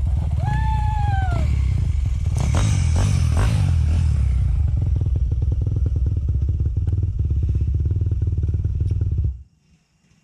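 Dirt bike engine running steadily at idle close by, then switched off abruptly about nine seconds in, leaving near silence.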